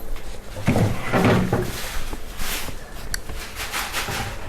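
Vegetables and plastic containers being put away into a refrigerator: rustling and light knocks of handling, with a short sharp click about three seconds in.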